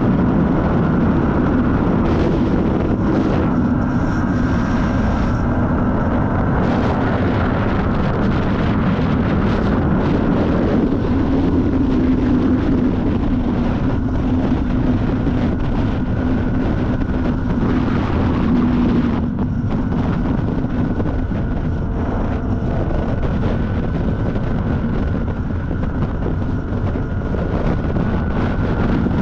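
Kawasaki ZX-10R sportbike's inline-four engine running at a steady cruise, its note holding nearly level and easing slightly about nineteen seconds in, under heavy wind rush on the microphone.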